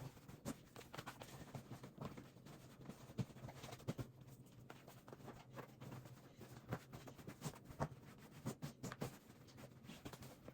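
Faint, irregular light clicks and taps of small objects being handled and set down, over a steady low hum.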